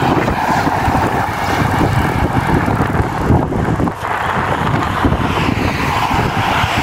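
Cars passing on a highway, their tyre and engine noise swelling as each goes by, near the start and again after about five seconds, with wind buffeting the microphone throughout.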